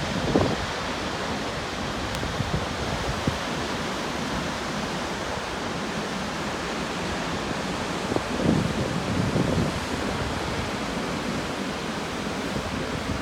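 Takakkaw Falls, a tall waterfall, pouring onto rocks in a steady, even rush of water noise. Wind gusts from the spray buffet the microphone with low rumbles about half a second in and again around eight to ten seconds in.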